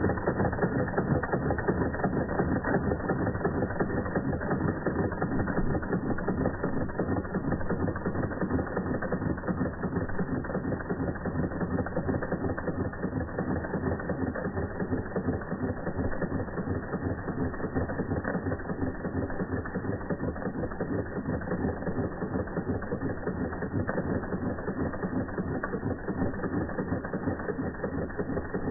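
Doll 338/1 twin-boiler toy steam engine running steadily, its oscillating cylinder and flywheel making a rapid, even mechanical clatter.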